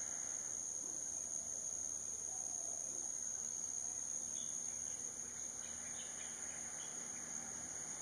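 Steady, unbroken high-pitched drone of insects, with a few faint short chirps about halfway through.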